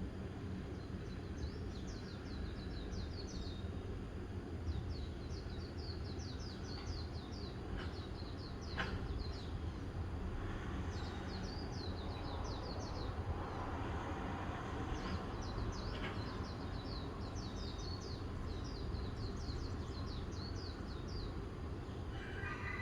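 A small bird singing in repeated fast trills of short high notes, phrase after phrase with brief pauses, over a steady low outdoor rumble.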